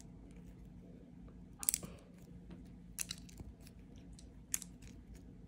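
Lego bricks handled and pressed together by hand: a few sharp plastic clicks and small ticks, the loudest cluster about a second and a half in.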